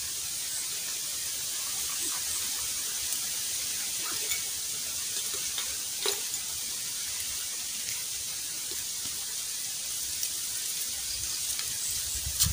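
Steady high-pitched hiss of outdoor ambience, with a few faint clicks and rustles from small items being handled.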